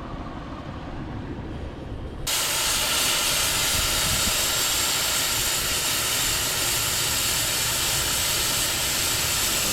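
Air rushing out of a Toyota 4Runner tire as it is aired down for a rough trail: a loud, steady hiss that starts suddenly about two seconds in, after a quieter low rumble.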